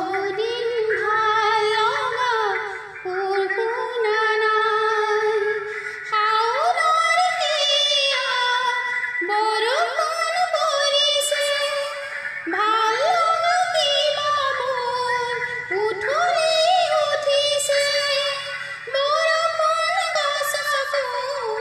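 A woman singing an Assamese song over a music track, holding notes and sliding between them.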